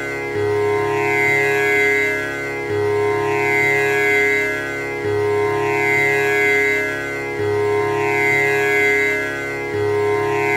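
Tanpura drone: its strings are plucked one after another in a cycle that repeats about every two and a third seconds, and the sound rings on with rich, shimmering overtones.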